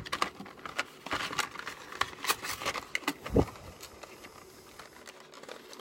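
Cardboard packaging being handled: scattered rustles, scrapes and light clicks as parts are lifted out of a box and its inserts, with one duller knock a little over three seconds in.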